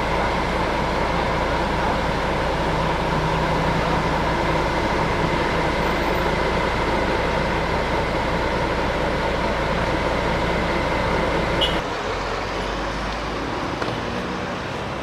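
Motor vehicle engine running close by with a steady hum and deep rumble over road traffic noise, cutting off suddenly near the end.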